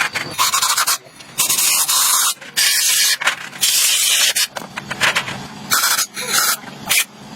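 Hissing spray in a series of short bursts, about seven, each lasting under a second, with brief pauses between them.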